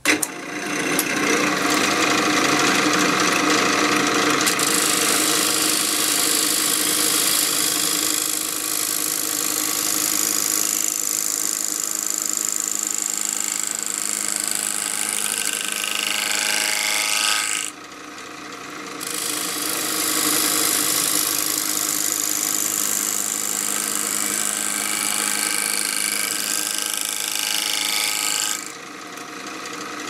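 A wood lathe starts up and a bowl gouge cuts into a spinning block of 2x8 construction lumber, giving a loud continuous shaving and scraping noise over the lathe motor's steady hum. The cut lifts off briefly about two-thirds of the way through, then resumes and stops shortly before the end, leaving the motor running.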